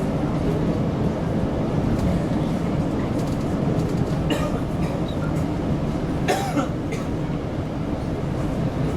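Mashaer metro train running, a steady low rumble heard from on board. A short high-pitched sound cuts in about six seconds in.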